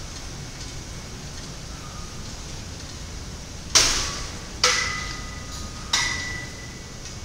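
Three sharp metallic clanks of gym weights in the second half, each leaving a short ringing tone that fades, over steady gym background noise.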